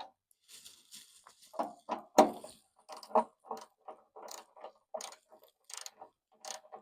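Irregular clicks and knocks of small parts and hand tools being handled, about two to three a second, with one sharper knock about two seconds in.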